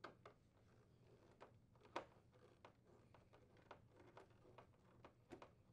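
Faint, scattered small clicks and ticks from a Phillips screwdriver and screws being worked out of a plastic refrigerator ice chute, with one slightly louder click about two seconds in.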